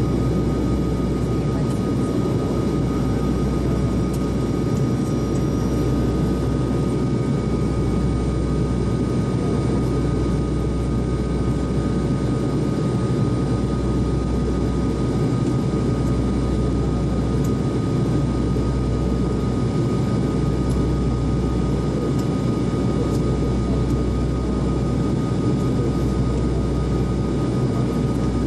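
Steady cabin noise of a Buddha Air turboprop airliner on approach: a constant drone of engines and propellers with a steady whine over it. Underneath, a low throb swells and fades about every two seconds.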